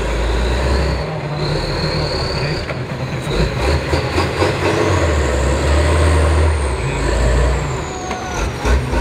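Tatra 6x6 trial truck's diesel engine running hard under heavy load, pulling up a steep dirt slope. A high whistle rises and then falls in pitch over the engine.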